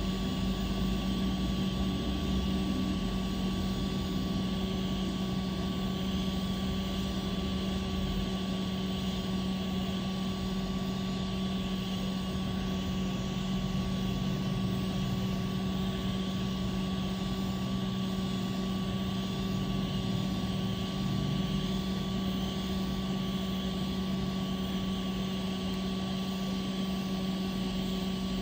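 Small electric motor or blower running steadily, a constant hum with an even whir.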